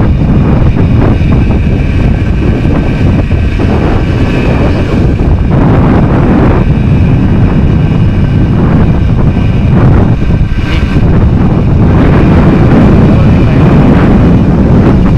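Heavy wind buffeting on the microphone over a Yamaha DT100's two-stroke single-cylinder engine running while the bike is ridden.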